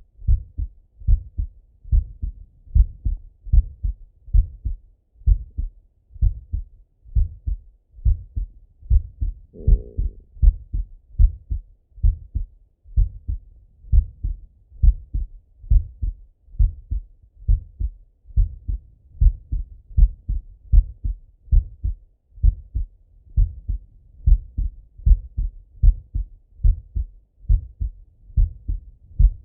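A man's heart beating, heard through a Littmann stethoscope on the chest: steady paired lub-dub thumps at about one beat a second, slow and regular.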